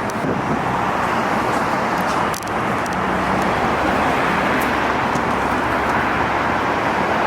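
Steady road noise of a moving car or passing traffic, a continuous rushing hiss with a brief dip about two and a half seconds in.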